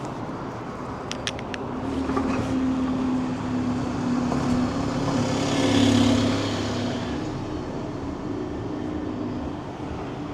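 A road vehicle drives past with its engine hum and tyre noise. The sound builds to its loudest about six seconds in, then fades away.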